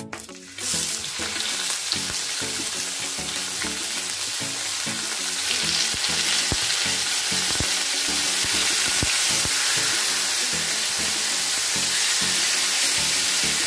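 Marinated chicken pieces frying in hot olive oil in a pan, sizzling and spattering loudly. The sizzle starts about half a second in as the chicken goes in, grows louder around five seconds in, with a few knocks of pieces or a utensil against the pan.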